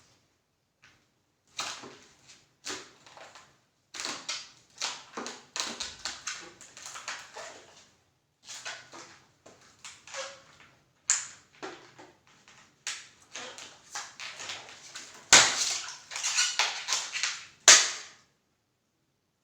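Latex long modelling balloons being squeezed and burst: irregular clusters of rubbery crackling and sharp pops with short pauses between, the two loudest pops about fifteen and eighteen seconds in.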